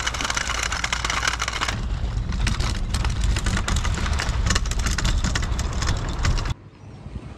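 Wheels of a boat-launching trolley rolling over a rough concrete slipway under a loaded inflatable boat: a steady rumble with gritty crackles, cutting off suddenly near the end.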